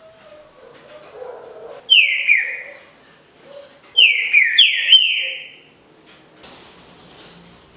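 Green-winged saltator (trinca-ferro) singing its smooth 'canto liso' song: loud, clear whistled notes, each sliding down in pitch, two about two seconds in and a run of three about four seconds in.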